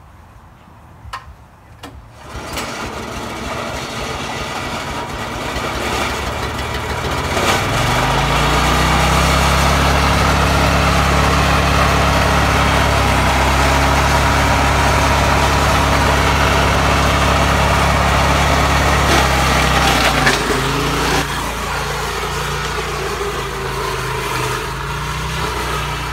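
Small single-cylinder gasoline engine of a walk-behind stump grinder starting after a few clicks about two seconds in. It runs, revs up to full speed about a third of the way through and holds there steadily, then drops back to a lower speed about three quarters of the way through.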